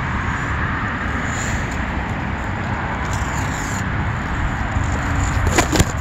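Steady outdoor city street noise, mostly passing car traffic, with a couple of sharp clicks near the end.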